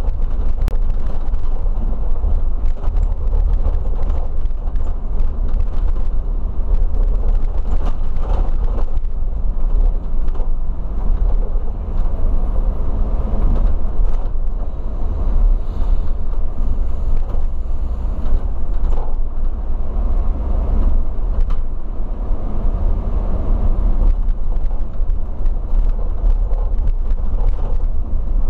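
Coach on the road, heard from inside the cab: the engine and tyre noise make a steady low rumble, with scattered small clicks and rattles.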